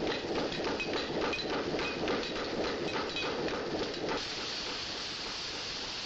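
Hammering on iron at a blacksmith's forge: a quick, uneven run of ringing metallic clinks, about three a second. About four seconds in it cuts to a steady rush of falling water.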